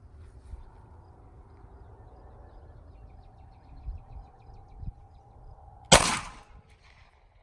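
A single 9mm pistol shot from a Glock 43X about six seconds in, fading over about half a second. Two faint knocks come a little before it.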